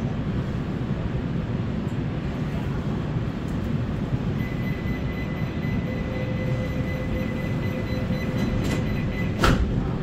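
Metro car interior with a steady low rumble of the standing train, a steady high warning tone for about five seconds, then a single sharp clunk near the end as the passenger doors shut.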